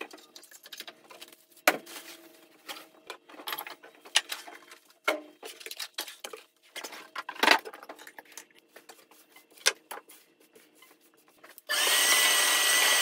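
Clatter and knocks of tools and objects being lifted and set down on a workbench, then near the end a shop vacuum switches on and runs with a steady whine, sucking dust off a wood slab.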